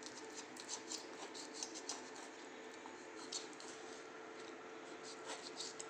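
Knife cutting through cooled, set peanut-and-jaggery chikki on a plate: faint, irregular small clicks and scrapes, several a second. The brittle has set crisp enough to cut cleanly.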